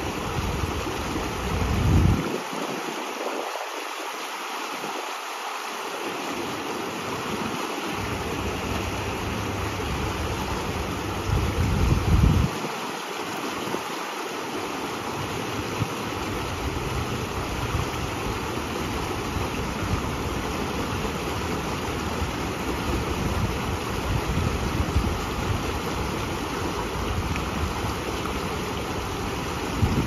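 Water rushing steadily down the stepped stone channel of a herring run and past a water wheel. Wind buffets the microphone with a low rumble about two seconds in and again about twelve seconds in.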